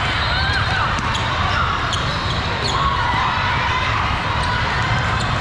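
Basketballs bouncing on a hardwood court inside a large, echoing hall, with a steady din of many voices and a few short high squeaks.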